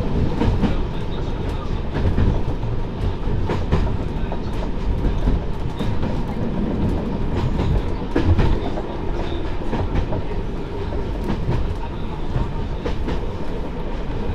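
Derby Lightweight diesel railcar M79900 Iris running along the line, heard from inside its driving cab: a steady engine and running rumble with the clickety-clack of the wheels on the rails coming as irregular sharp clicks.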